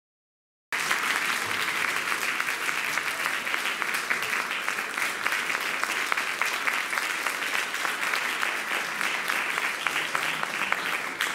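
Audience applauding: many hands clapping in a dense patter, cutting in abruptly about a second in and thinning out near the end.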